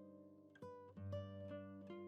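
Soft background music played on a plucked acoustic guitar, single notes ringing out one after another.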